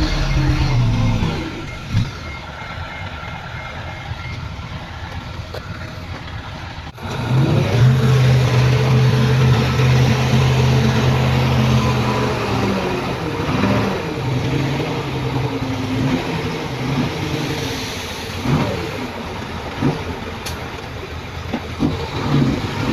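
Heavy diesel engines of earthmoving machinery running and revving. It is quieter for the first few seconds, then about seven seconds in it changes abruptly to a louder engine whose pitch rises and falls as it works.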